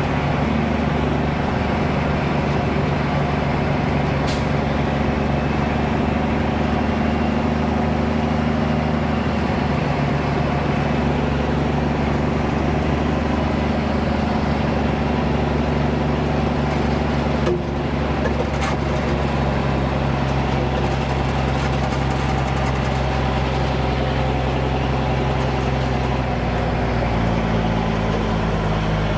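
Dump truck's diesel engine running steadily while driving, its pitch dropping to a lower engine speed near the end.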